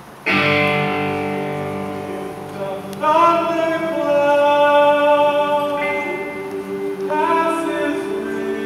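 Mixed student choir singing in harmony with instrumental accompaniment: a loud chord comes in just after the start and rings away, and the voices swell louder about three seconds in and again near the end.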